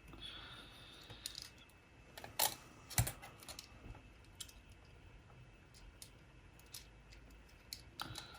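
Scattered small clicks and taps of tiny plastic and metal parts being handled and fitted together as a MiniDisc walkman is reassembled, with the two loudest knocks about two and a half and three seconds in.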